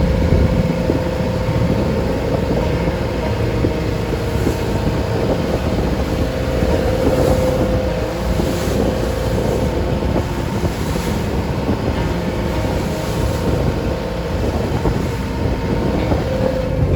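Engine of a traditional wooden passenger boat running steadily with a constant drone, under wind buffeting the microphone and the rush of the sea.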